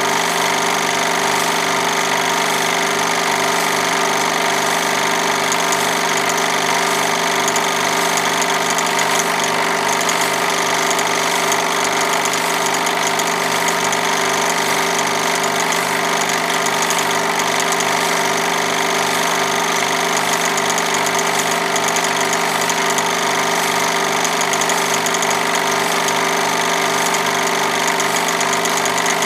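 Movie projector running: a steady mechanical whir made up of many constant tones, with an even pulsing beat underneath.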